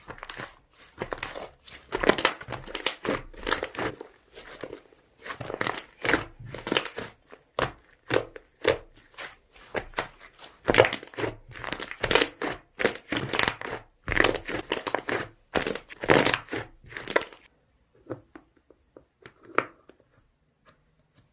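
Slime being squeezed and stretched by hand, giving dense crackly pops and clicks. It stops about 17 seconds in, leaving a few faint clicks.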